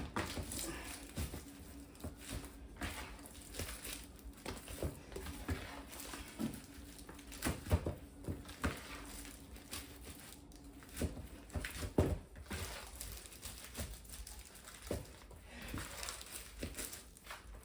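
Hands stretching and working soft bread dough, giving irregular quiet squishes, pats and small tearing sounds.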